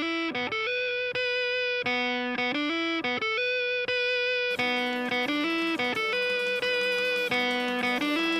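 Background music: an electric guitar picking a slow melody that steps back and forth between a few notes.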